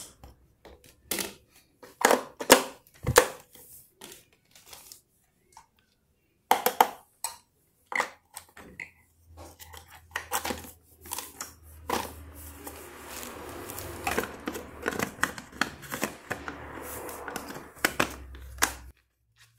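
Plastic bowl of a small electric food chopper being handled: a spatula scraping chopped garlic and green pepper, then irregular clicks and knocks as the blade and lid are fitted back on.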